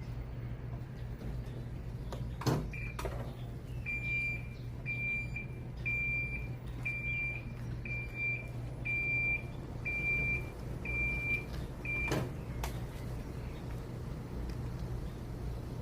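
Small electric farm cart with a steady low hum. After a sharp click, its electronic beeper sounds about ten short, even beeps, one a second, and stops at a second click.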